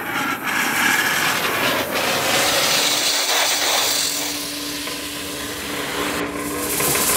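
Sandblasting: a steady hiss of compressed air and abrasive grit blasting from the nozzle onto the sailboat's sheet-iron hull.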